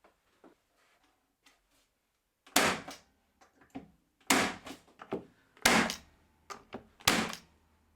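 Nail gun firing into plywood: four sharp shots roughly a second and a half apart, with lighter knocks of the workpiece being handled between them.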